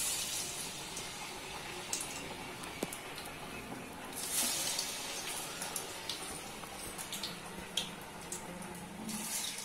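Hot oil in a kadai sizzling and crackling as bottle-gourd garelu (rice-flour vadas) deep-fry. The sizzle swells each time a fresh patty is slipped in: at the start, about four seconds in, and again near the end.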